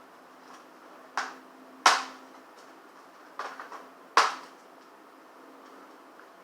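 Sharp clicks and knocks of hard plastic laptop parts and small tools being handled on a work surface during disassembly. There are about four taps over a few seconds, the loudest two about two seconds apart, one of them a short rattling cluster.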